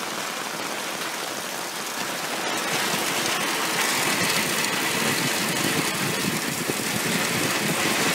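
Storm rainwater gushing from a zinc downspout into the inlet of a full plastic rain barrel: a steady splashing pour with heavy rain around it, growing louder about two and a half seconds in.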